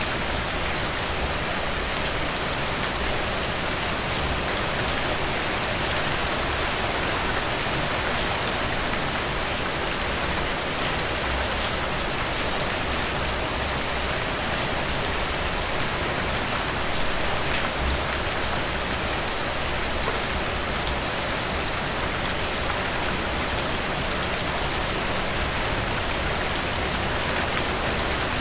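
Heavy rain falling steadily, a dense even hiss with many fine drop patters on a surface.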